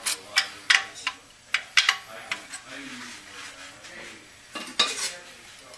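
Metal clutch plates, the waved cushion plate on a stack of steel plates, clinking against each other and the aluminium transmission case as they are set into the 6R80 transmission's low/reverse clutch pack. A run of sharp metallic clinks, several in the first half and a pair near the end.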